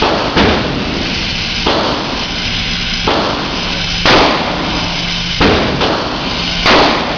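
Gunshots at a shooting range: about six shots at an even pace, roughly one every second and a quarter, over a steady background hiss.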